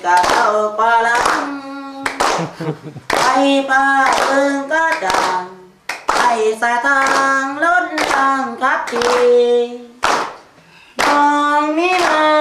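Schoolboys singing a song together and clapping their hands in time, about a clap every three-quarters of a second. The singing breaks off briefly twice.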